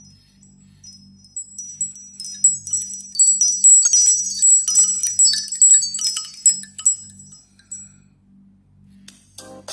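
Wind-chime ringtone from a Nokia Asha 302: a cluster of high, bright chime tones that swells up over the first few seconds, rings loudest in the middle and fades out about eight seconds in, over a faint low hum. Just before the end the next ringtone starts.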